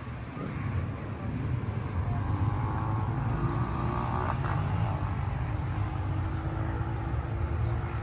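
A steady low outdoor rumble with faint steady tones above it.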